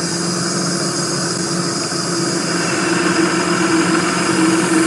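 A boat's motor running steadily as a constant low hum, getting a little louder about three seconds in. A steady high insect chorus sounds over it.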